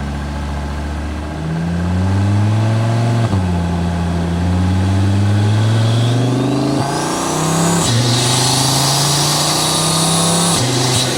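Audi TT RS 2.5-litre turbocharged five-cylinder accelerating through the gears. The engine note climbs and drops sharply at each of about four shifts. In the second half a rising turbo whistle builds, then a turbo hiss and flutter come in.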